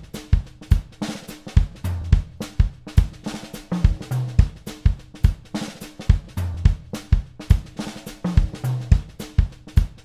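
Drum kit playing a steady groove: bass drum and snare hits with hi-hat and cymbals, and a low drum note roughly every two seconds.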